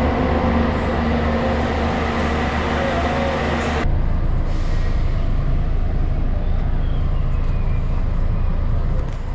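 Bus engine idling close by, a steady hum with several pitched tones. About four seconds in it changes abruptly to the lower, duller rumble of the engine heard from inside the bus cabin.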